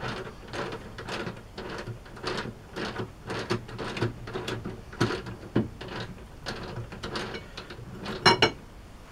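Irregular metallic clicks, knocks and clatter of metal parts and tools being handled at a lathe, with a louder ringing clank about eight seconds in.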